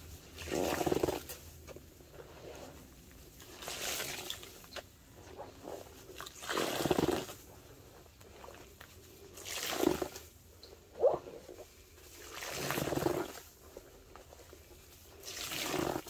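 Wet, sudsy sponge squeezed by hand in a stainless steel bowl of soapy pine cleaner, six squelching squeezes about three seconds apart. A brief sharp tap about eleven seconds in.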